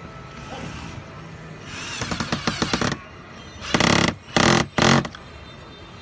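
Cordless drill/screwdriver driving screws into a plastic car door panel: a rattly run of about a second and a half, then three short, loud bursts.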